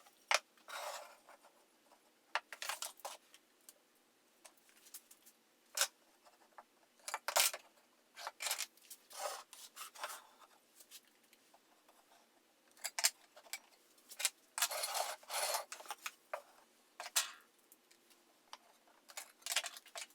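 Mitered cherry box pieces being handled and fitted together: scattered clicks and knocks and the rubbing of wood on wood, in short irregular bursts.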